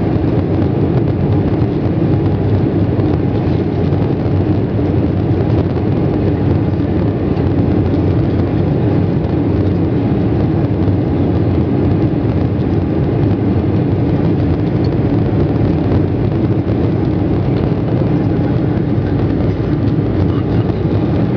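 Jet airliner's engines heard from inside the passenger cabin while the plane taxis: a steady rumble with a faint steady whine above it.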